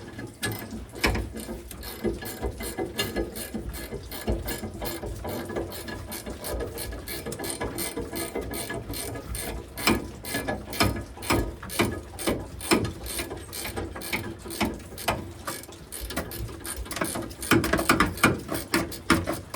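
Hand socket ratchet clicking steadily as nuts are run onto gooseneck hitch mounting bolts, with a louder, faster run of clicks near the end.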